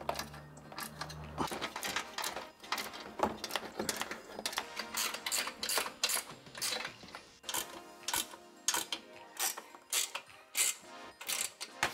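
Ratchet wrench clicking in quick, irregular runs as bracket screws on the front bumper carrier are turned, with small metallic tool knocks.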